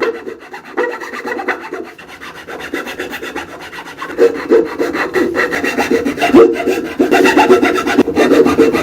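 Wood being worked by hand with an abrasive, rubbed in rapid back-and-forth strokes. It is quieter for a couple of seconds, then grows louder about four seconds in.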